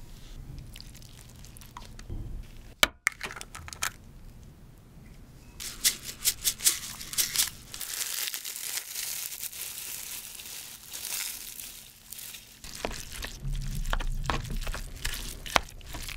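Dried seaweed (gim) crushed and crumbled by gloved hands over rice, a dense crinkling crackle from about six seconds in lasting several seconds, after lighter handling clicks. Near the end a spoon scrapes and mixes the rice in the king crab shell.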